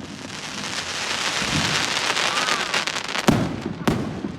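Fireworks going off: a dense crackling that builds up, then two loud bangs about half a second apart near the end.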